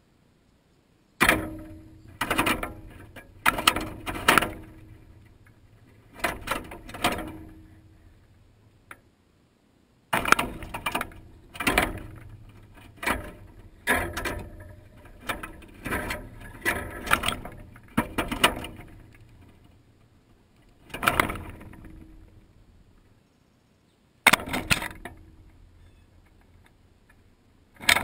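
In-shell peanuts rattling and knocking against the wire mesh of a peanut feeder as a blue jay pecks at them and tugs them loose. The sound comes in irregular bursts of sharp clatters, with pauses of a second or two between them.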